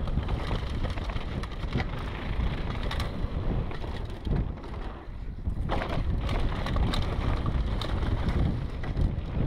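Wind buffeting the helmet-camera microphone over the steady rumble of a Specialized Demo 8 downhill mountain bike descending a dirt trail at speed, with the tyres crunching on dirt and gravel and the bike rattling and knocking over bumps. About halfway through comes a brief denser clatter as the wheels cross a short wooden plank bridge.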